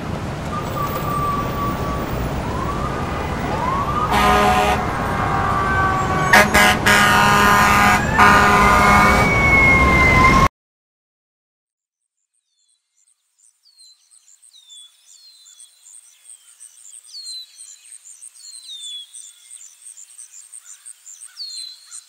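City street noise: traffic with sirens wailing and car horns honking, growing louder until it cuts off abruptly about ten seconds in. After a couple of seconds of silence, birds start chirping faintly with repeated short falling calls over a high thin trill.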